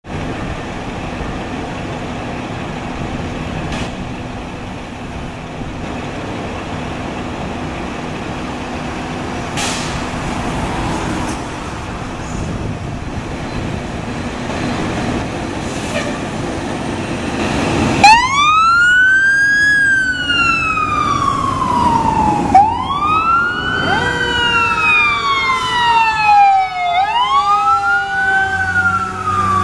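Fire truck diesel engines and street noise, then, about eighteen seconds in, a fire apparatus siren starts: it winds up quickly and slowly coasts back down, three times in a row, with a second falling siren tone overlapping near the end as the tower ladder truck drives past.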